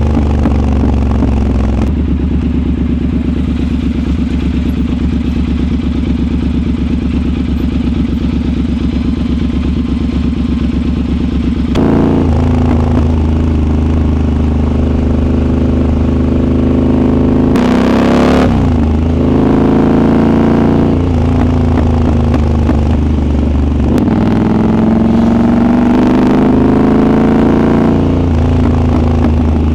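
Triumph Scrambler 1200 XE's 1200 cc parallel-twin engine heard from onboard while riding. It runs steadily at first, gets louder about twelve seconds in, and then its revs rise and drop several times.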